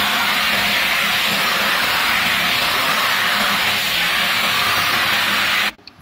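Philips FC8474 1800-watt bagless cylinder vacuum cleaner running, a steady loud rushing hiss of suction as its brush nozzle is drawn over a cloth cover. The sound cuts off suddenly near the end.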